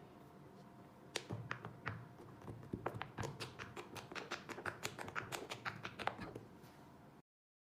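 Plastic fidget toy being tapped and clicked by hand: a quick run of small sharp clicks, several a second, that cuts off suddenly near the end.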